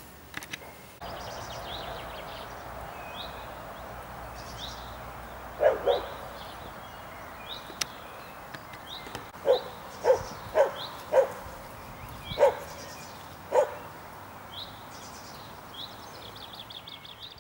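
An animal barking: seven or so short, sharp barks, the first about six seconds in and the last a few seconds before the end. Small birds chirp throughout.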